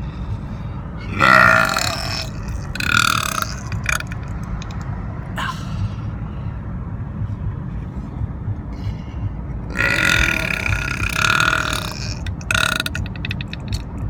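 A person burping loudly several times: two burps about one and three seconds in, then a long drawn-out burp of about two seconds near ten seconds in, followed by a short one. A steady low rumble runs underneath.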